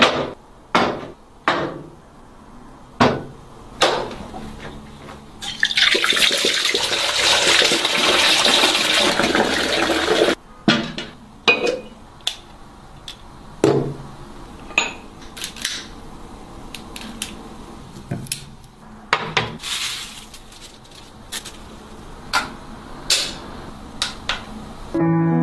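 Wooden bath tray and other bathroom items being handled and set in place: a series of sharp knocks, clicks and clinks. A rushing noise about five seconds long starts a little before six seconds in.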